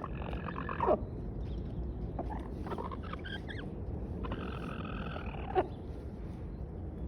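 A chicken making weird, drawn-out calls: a held call at the start, a broken run of shorter notes in the middle, and a longer held call that cuts off sharply near the end.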